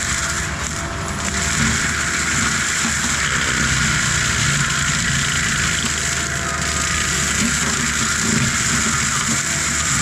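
ASV RT-135 compact track loader's diesel engine working hard while its forestry mulcher drum spins and grinds through brush, a steady mechanical din with no let-up.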